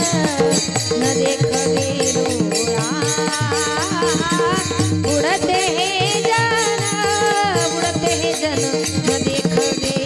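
Kirtan group singing an abhang in chorus, with hand cymbals (taal) keeping a steady quick beat, a drum and a steady held accompanying tone.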